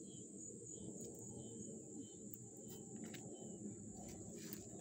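Faint outdoor summer ambience: insects droning a steady high-pitched note, over a low rumble. A few faint clicks, about four, are scattered through it.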